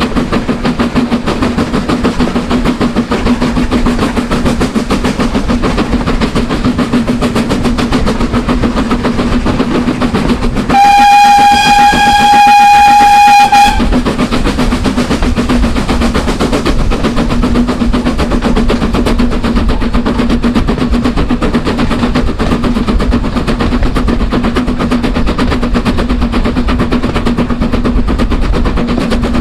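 A steam train running with a fast, even beat. Its steam whistle sounds once, loud and steady, for about three seconds near the middle.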